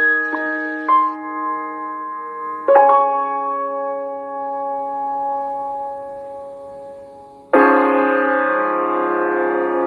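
Background music: a few slow piano notes struck and left to ring, fading away, then a louder, fuller held chord coming in suddenly about seven and a half seconds in.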